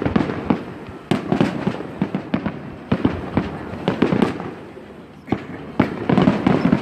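Aerial fireworks going off in quick irregular succession: sharp bangs with rumbling echoes and crackle between them, thickening into a rapid cluster of bangs near the end.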